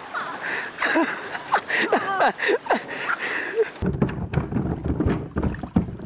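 Water rushing across a flooded road, with people shouting in short rising and falling calls. About four seconds in it cuts abruptly to heavy wind buffeting the microphone, a deep rumble with sharp knocks.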